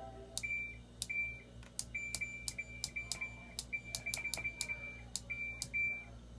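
Kenmore washer/dryer control panel beeping as its buttons or cycle dial are worked: a quick, uneven series of about eighteen clicks, most followed by a short high beep on a single pitch.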